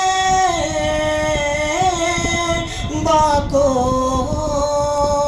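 A boy singing a naat, an Urdu devotional poem, without instruments into a microphone, drawing out long held notes that slide from one pitch to the next.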